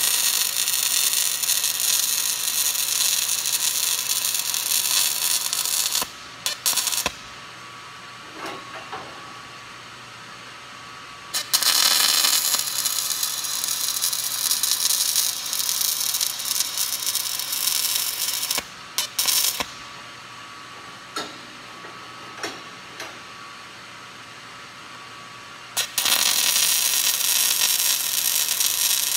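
Electric arc welding on steel: the arc crackles and hisses in three long runs of several seconds each, with a few short blips of arc between them.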